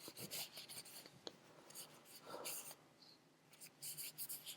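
Microfiber cloth wiping a carbon-fiber folding knife: faint, irregular soft rubbing strokes, with a light click about a second in.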